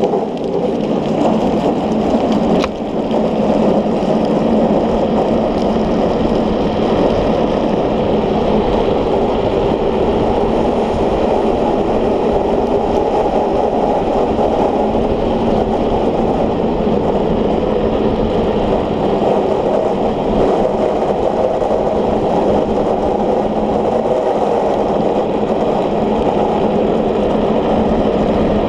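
Unpowered speed trike rolling fast downhill on asphalt: a steady rush of wheel roar and wind noise.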